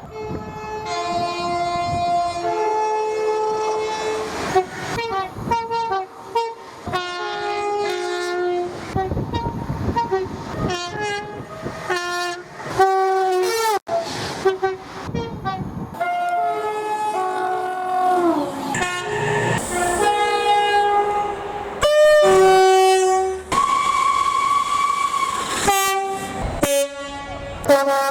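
A rapid run of two-tone UK train horn blasts from passing trains, cut together one after another. Several blasts drop sharply in pitch as the train rushes by (the Doppler effect), over the rumble and clatter of the passing trains.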